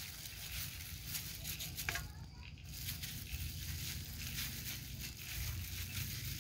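Frog salad being tossed and squeezed by a hand in a thin plastic glove in a metal tray: crinkling of the glove and rustling of the moist shredded ingredients in irregular strokes.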